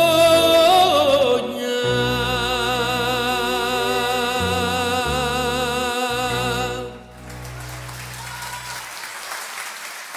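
A male singer holds the song's last note with vibrato, then violin and double bass sustain a closing chord for about five seconds, with low bass notes changing under it. About seven seconds in, the live audience breaks into applause.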